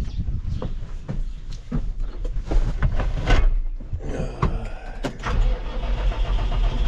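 Scattered knocks and clicks, then a vehicle engine running steadily from about four seconds in.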